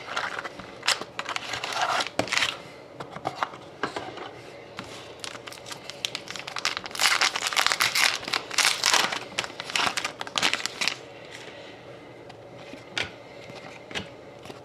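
Hockey card packs being torn open and handled: foil wrappers crinkling and ripping in irregular bursts, loudest a little past halfway, then quieter with a few light clicks near the end.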